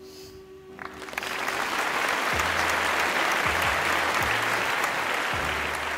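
Applause starts about a second in and keeps up steadily over soft background music.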